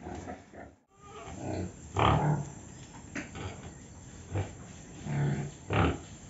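Pigs grunting in a string of short, gruff grunts, broken by a moment's silence about a second in; the loudest grunts come about two seconds in and twice near the end.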